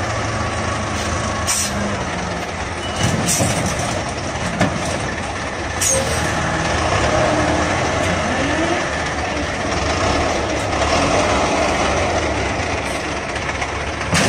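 Diesel engines of a dump truck and a wheel loader running steadily under load while the truck's bed is tipped and its front end lifts off the ground, with a few sharp knocks and clanks from the machinery in the first half.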